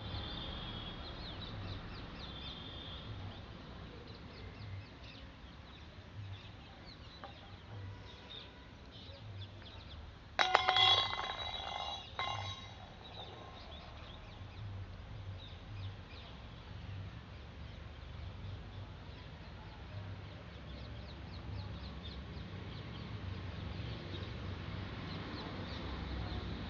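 Outdoor background with birds chirping. About ten seconds in, a loud steady-pitched sound starts suddenly and holds for about two seconds.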